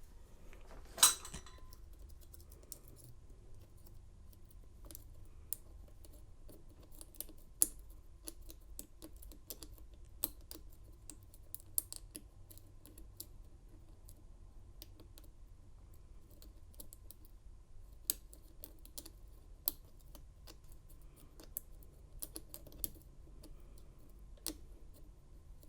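Small irregular metallic clicks of a hook pick lifting and setting pin tumblers inside a Chateau 50mm laminated steel padlock held under tension, with a louder click about a second in.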